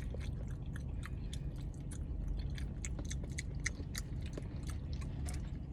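Close-up chewing and mouth sounds of someone eating KFC macaroni and cheese: many small, irregular wet clicks, over a steady low hum.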